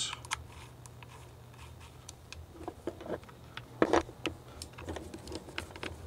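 Small screws being driven into a wheelchair joystick swing-away mount with a hand screwdriver: scattered light clicks and taps of the driver and screws against the mount, with a sharper pair of clicks about four seconds in.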